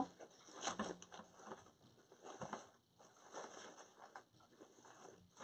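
Faint, irregular rustling and light handling noises, a few short soft scrapes, as deco mesh and ribbon are worked by hand on a wreath form.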